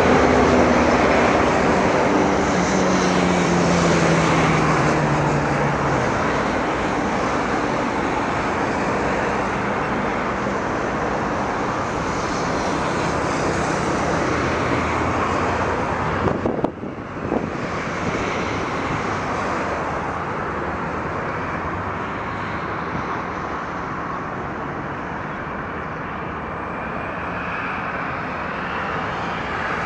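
Jet airliner engines running loudly at an airport runway, with a tone sliding down in pitch over the first few seconds. A rising whine near the end is typical of the engines spooling up for the takeoff roll.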